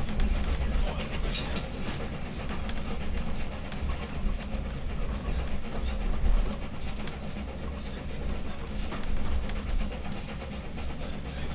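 Railway carriage running along the line, heard from aboard: a steady rumble of wheels on rail with occasional faint clicks.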